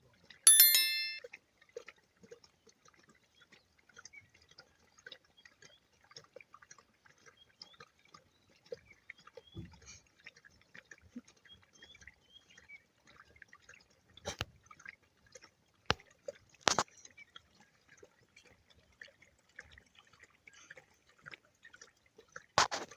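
Faint scattered wet clicks and drips, with a few sharper clicks in the second half. A brief high ringing tone comes right at the start.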